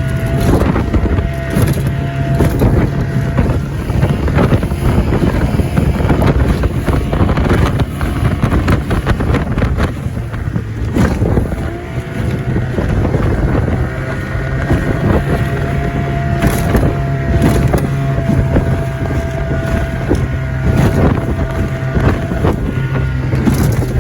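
Outboard motor on a 14-foot Livingston boat running steadily through rough water, with irregular bangs and slaps of the hull against the waves and wind on the microphone.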